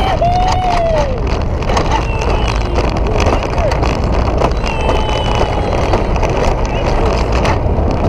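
Mountain coaster sled running fast down its tubular steel rail: a steady loud rumble of the wheels on the track mixed with wind buffeting a helmet-mounted camera. A few brief gliding tones rise and fall in the first second.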